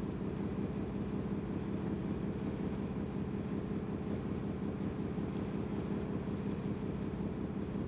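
A ferry's engine running steadily, a constant low drone with a hum, as heard on board under way.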